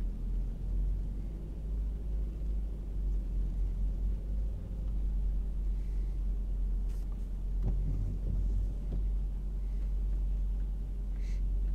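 Steady low engine rumble heard from inside a car's cabin as the car rides a river ferry across to the landing. There are a couple of faint clicks late on.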